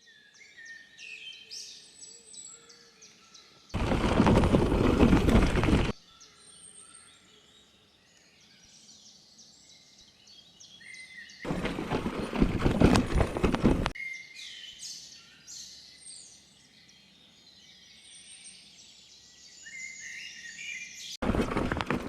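Birds singing with many short chirps, cut three times by bursts of loud noise about two seconds long that start and stop abruptly.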